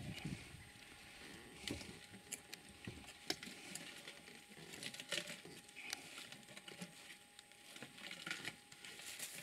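African bush elephant browsing on bush branches: irregular snapping and crackling of twigs with rustling leaves as it pulls them in with its trunk and feeds.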